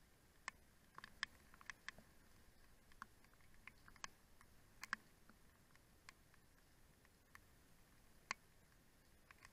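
Faint, irregular ticks of raindrops striking a window ledge and frame, one to three a second, over near silence.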